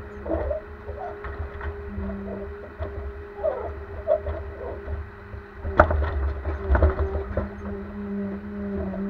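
Ponsse Elk forwarder's engine and crane hydraulics running, a steady low drone with a whining tone, with light clatter and one sharp knock about six seconds in.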